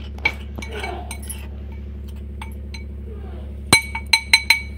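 Spoon stirring flour in a glass bowl with a few soft scrapes, then a quick run of sharp clinks near the end as the spoon is tapped on the glass rim, each ringing briefly.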